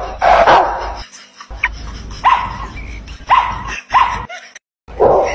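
A small terrier barking: about five short barks at irregular intervals.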